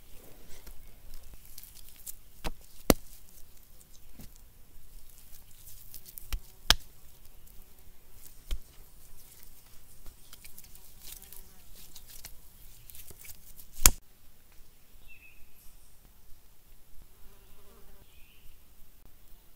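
Hands kneading and squishing wet clay, with scattered sharp slaps, the loudest about three, seven and fourteen seconds in. After that a fly buzzes faintly.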